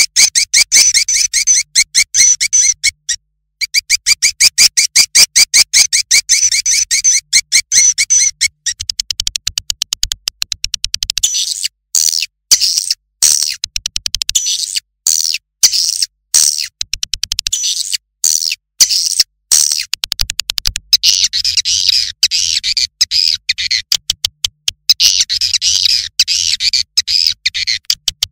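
Swiftlet calls, as used to lure swiftlets: rapid trains of high, clicking chirps at roughly ten a second, with a brief break near the start. After about eight seconds they become a denser, higher twittering broken by short gaps.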